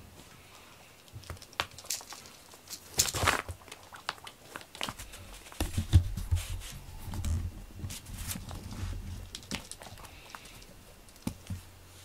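Crinkling rustles and scattered light taps from a cat playing with a toy, with a louder rustle about three seconds in and a few soft thumps around the middle.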